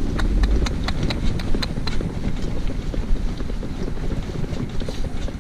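Shetland pony's hooves clip-clopping on a tarmac road as it pulls a cart, with wind rumbling on the microphone.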